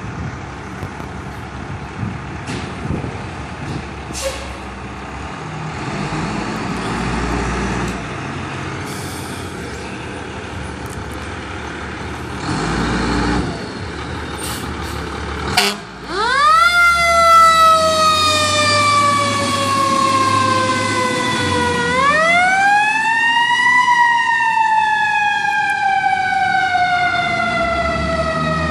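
Fire engine leaving its station. Its engine runs for the first half. About halfway in, its siren winds up sharply and then falls slowly. A few seconds later it winds up again and falls slowly once more.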